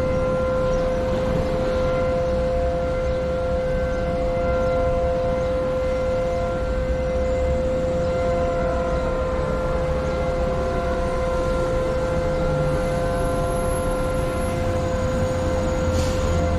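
Synthesized outdoor warning siren sounding a steady alert tone: one held pitch with fainter overtones above it, over a low rumbling background noise.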